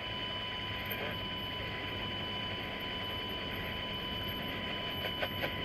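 NOAA Weather Radio 1050 Hz warning alarm tone: one steady high-pitched beep held over receiver hiss, with a few crackles near the end, sounded during the weekly test of the warning alarm.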